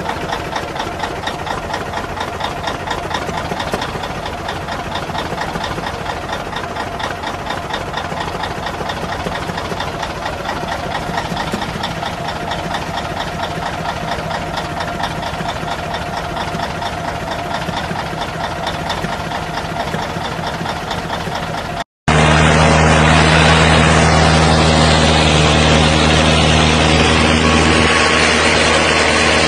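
Peterbilt semi truck's diesel engine idling with a steady, even clatter. About three-quarters of the way through it cuts off abruptly, and a louder, steady low drone takes over.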